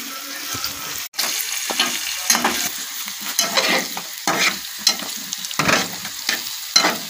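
Cauliflower pieces frying in oil in a steel pan, sizzling steadily, while a spatula stirs and scrapes the pan in repeated strokes. The sound cuts out briefly about a second in.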